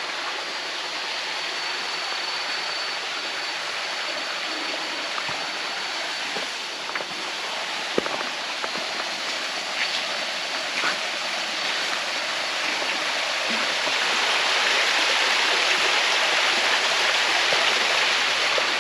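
A small waterfall and stream running with a steady rush of water, getting louder about three-quarters of the way through, with a few light knocks.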